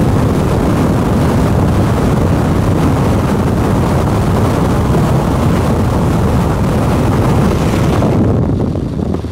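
Wind buffeting the microphone, with road noise from a moving vehicle: a loud, steady rumble. About eight seconds in, the higher hiss drops away.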